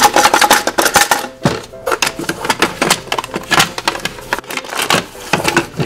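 Hands rummaging through small toys inside a hollow plastic toy backpack, with rapid clattering and rustling of plastic pieces.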